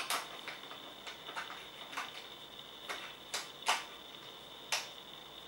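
Irregular light clicks and taps, about nine in all, as the presser foot is unclipped from and fitted to the quick-release foot shank of a Bernina Record 930 sewing machine.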